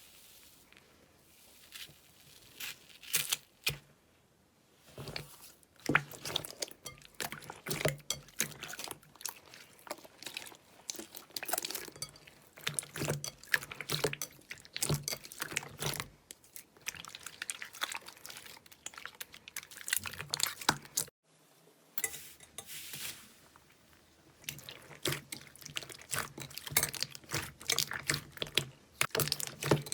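Slime being squished and worked by hand: dense, irregular sticky clicks and crackling pops, with a brief break about two-thirds of the way through.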